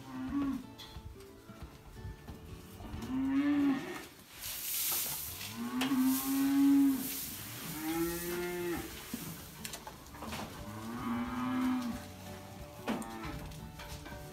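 Holstein dairy cows mooing at the feed bunk: about five long calls, one after another, each rising and then falling in pitch. They are calling at feeding time as feed is poured into the bunk.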